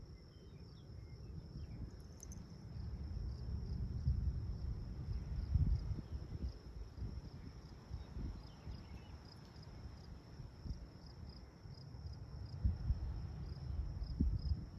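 Insects trilling steadily in a high, thin tone, over uneven low rumbling noise on the microphone.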